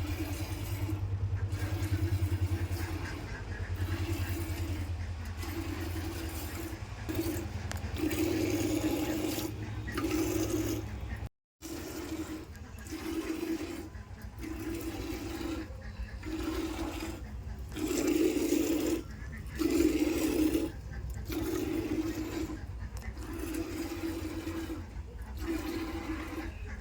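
Milk squirting into a bucket as a Jersey cow is milked by hand, the streams coming in an even rhythm of pulses a little more than once a second. Near the middle the sound cuts out for a moment.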